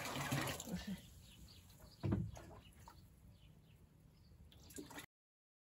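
Water splashing as a plastic watering can is dipped into a rain barrel and filled, dying away within the first second. A single dull knock about two seconds in, faint bird chirps, then the sound cuts out abruptly near the end.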